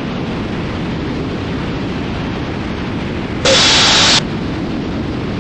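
Cessna T310R twin in flight: steady engine and airflow noise heard through the aircraft's audio system. About three and a half seconds in, a short, louder burst of radio hiss comes in and cuts off, the sound of a transmission keying on the frequency.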